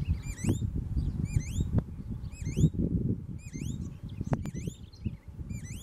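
Green-backed becard (Pachyramphus viridis) singing: a clear whistled note that dips and then sweeps upward, repeated about once a second. A low rumbling noise runs underneath, with a couple of faint clicks.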